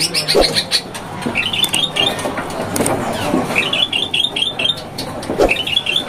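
Caged brown cililin singing in short bursts of rapid repeated notes, four phrases about two seconds apart, over a murmur of voices. A couple of low knocks sound under it.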